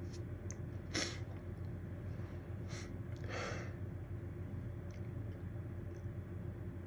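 A person's short, sharp breaths: a quick gasp about a second in, then two more drawn breaths around three seconds in, the hitching build-up before a sneeze. A steady low hum runs underneath.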